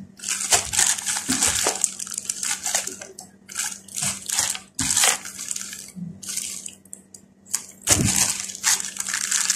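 Clear plastic packaging crinkling and rustling as it is handled, in bursts with short pauses, the strongest near the end.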